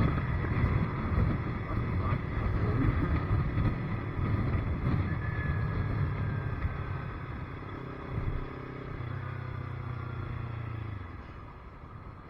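Motorcycle engine running with wind noise while riding; the low engine note drops away near the end and the sound gets quieter.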